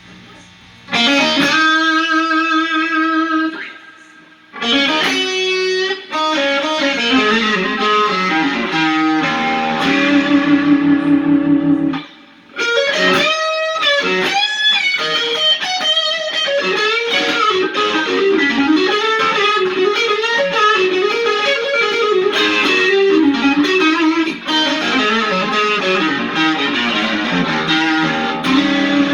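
Electric guitar overdriven by a Keeley-modded TS808 Tube Screamer boosting a Lovepedal Supersix, through a Fender Hot Rod Deville amp with no reverb. It plays blues licks with string bends and held notes. The playing starts about a second in and breaks off briefly around four and twelve seconds in.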